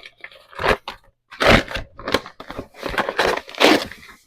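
A measuring cup scooping into granulated sugar and tipping it out: a series of short, gritty crunching rushes with brief gaps between them.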